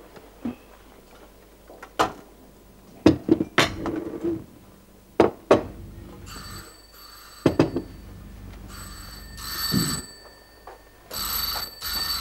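Telephone bell ringing three times, starting about halfway through, each ring a double burst. A few short knocks come before the first ring.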